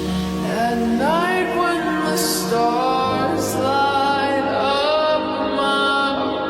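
Background song: a voice singing a slow, drawn-out melody over sustained chords.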